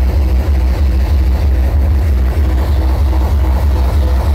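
Hardcore techno played very loud over a festival sound system, a fast bass kick drum filling the low end with a few steady synth notes above it.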